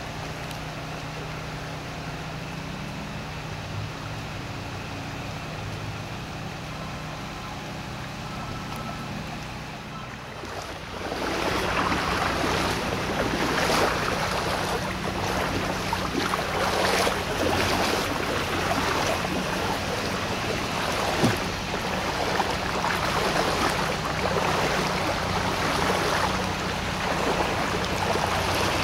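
Floodwater rushing through a street: a quiet steady low hum for the first ten seconds or so, then a much louder, even rushing that swells every second or two.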